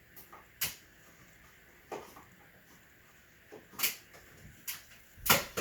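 A handful of short, sharp clicks and knocks from a smoke alarm's plastic parts being handled, about six in all, the loudest near the end.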